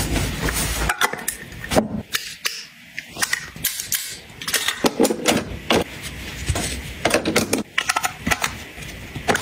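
Close-up handling sounds of small items being packed: irregular sharp clicks and taps of hard plastic, such as a claw clip and a clear plastic case, among soft rustling of a fleece pouch.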